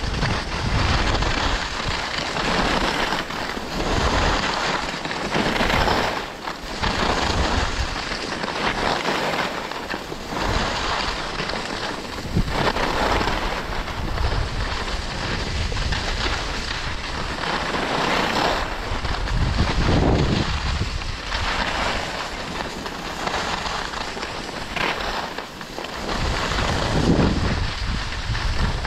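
Wind buffeting the microphone while skiing downhill at speed, with the hiss and scrape of skis on packed snow swelling and fading every second or two with the turns.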